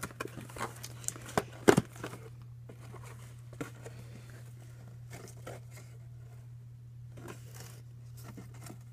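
Cereal-box cardboard being cut and torn with a flathead screwdriver: scattered rough scrapes and crackles, with a couple of sharp snaps about one and a half seconds in, then sparser scraping.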